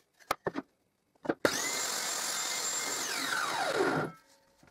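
A few knocks of wooden workpieces being handled, then a table saw is switched on and runs with a steady high whine for about a second and a half before being switched off, its whine falling in pitch as it winds down.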